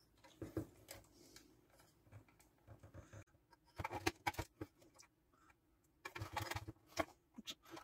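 Faint, scattered clicks and small metallic rattles of wire strippers and stiff copper wires being handled in a plastic electrical gang box, in short clusters about four seconds in and again between six and seven and a half seconds.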